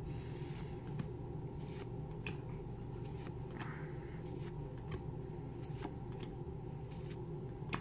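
Soft swishes and flicks of Magic: The Gathering cards being slid one at a time from the front of a booster-pack stack to the back, roughly once a second, over a steady low hum.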